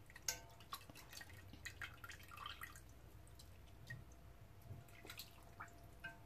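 Faint drips and light ticks as broth drips from beef shank lifted out of a stockpot with chopsticks and a steel skimmer ladle, the ladle now and then tapping the pot.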